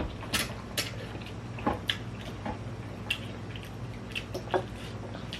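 Someone eating noodle soup close to the microphone: wet chewing and lip smacks, heard as a scatter of short, sharp clicks.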